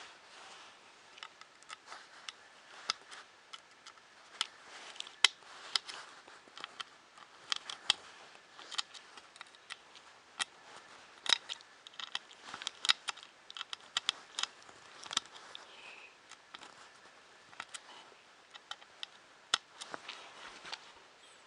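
Irregular small clicks and taps of a hand tool and metal screws as screws on a 3D printer's Y-axis belt holder are tightened, a few sharp knocks standing out.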